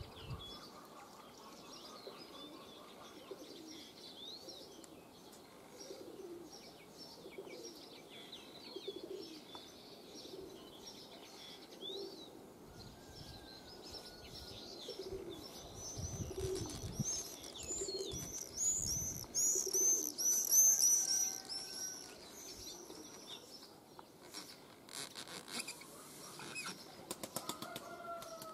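Pigeon wings flapping, with pigeons cooing in low notes about once a second and a small bird's quick run of repeated chirps, loudest a little past the middle. A burst of quick sharp clicks comes near the end.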